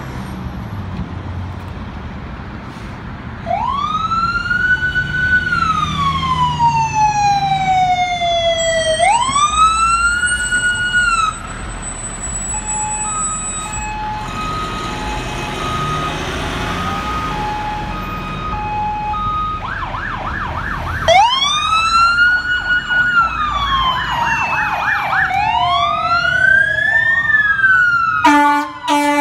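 Fire department ambulance and fire engine electronic sirens on an emergency run: two slow rising-and-falling wails, then an alternating two-tone stretch, then a fast yelp overlapping another wail. A loud, steady air horn blast comes in near the end, over the rumble of idling traffic.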